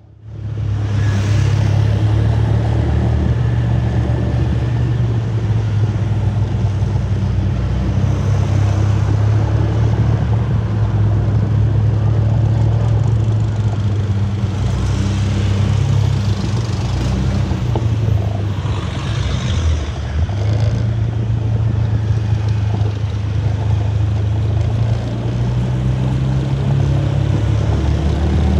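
Car being driven: steady engine and road noise, a continuous low hum, with brief swells of higher hiss near the middle.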